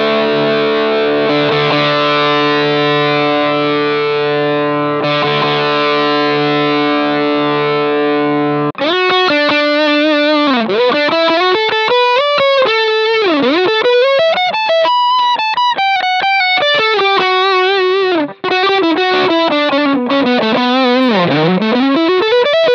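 Electric guitar played through a Sinvertek Drive N5 Plus distortion pedal, with its Resonance (low-end frequency) control being tried. A distorted chord is held and rings for about nine seconds. It then gives way to a single-note riff with sliding notes, which breaks off briefly about eighteen seconds in.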